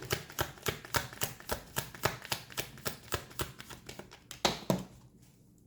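Tarot deck being shuffled by hand: a quick, even run of card slaps, about four to five a second, ending with two louder slaps near the end.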